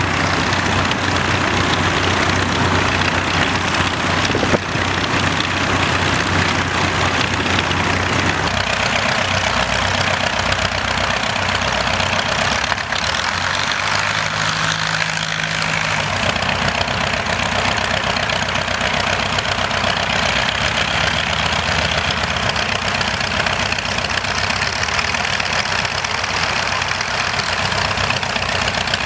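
De Havilland Tiger Moth biplanes' four-cylinder Gipsy Major engines running steadily at idle with an uneven, knocking beat. The tone shifts about eight seconds in.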